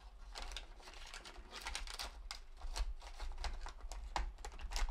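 Paperboard box and packaging handled by hand: a run of irregular light clicks, taps and scrapes as flaps and packets are moved about.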